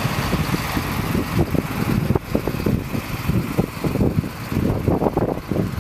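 Idling engine of a HIAB crane lorry, a steady low rumble, with wind gusting on the microphone.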